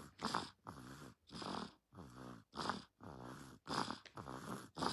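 A dog snoring, a quick, regular run of in- and out-breaths with a louder snore about once a second.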